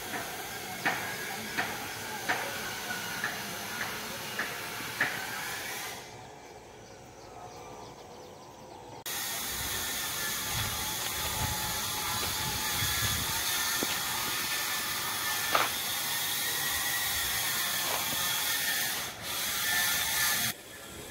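Footsteps on a dirt path, ticking about once every 0.7 s for the first few seconds. After a quieter stretch comes a steady high-pitched outdoor hiss that cuts off abruptly near the end.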